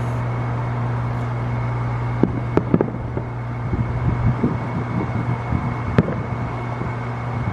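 Distant fireworks going off: a few sharp bangs and a scatter of crackles over a steady low hum.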